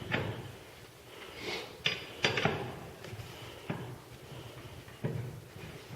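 A handful of sharp metallic clinks and knocks, about six, as lug nuts are worked off a car wheel and handled. The loudest come in a quick pair about two seconds in.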